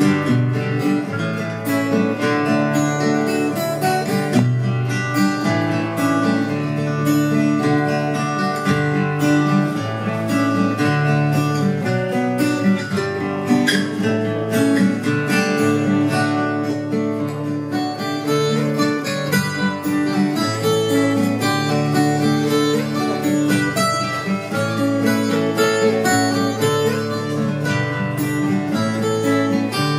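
Acoustic guitar music: strummed chords with picked notes, played steadily throughout.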